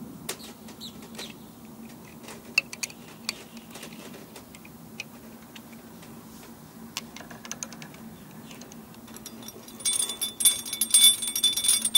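Scattered small metallic clicks and clinks as a stainless Sta-lok rigging terminal is tightened on wire with wrenches and handled, over a faint steady hum. Near the end comes a brighter run of metallic jingling and clinking.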